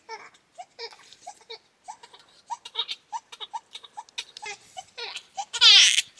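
Baby babbling and giggling in short little sounds, then a loud, high squeal about five and a half seconds in.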